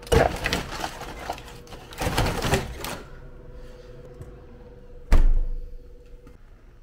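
Plastic-wrapped water bottles being loaded into a glass-door drinks refrigerator: crinkling wrap and bottles knocking on the wire shelves for about three seconds. About five seconds in, the refrigerator's glass door shuts with one loud thump.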